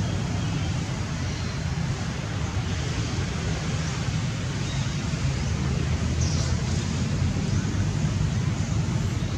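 Steady low rumbling background noise outdoors, with a few faint, brief high-pitched sounds over it.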